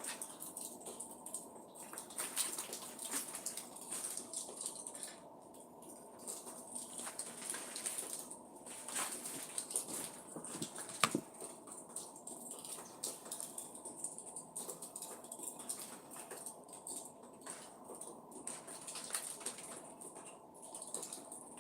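Backyard outdoor ambience: birds chirping now and then over a steady high-pitched hiss, with scattered small clicks and rustles.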